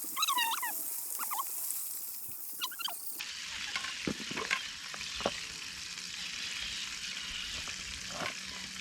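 Hot oil sizzling steadily in a pan over a campfire, with a few sharp clicks from utensils. For the first three seconds, before a sudden change, short chirping animal calls sound over a high, steady insect hiss.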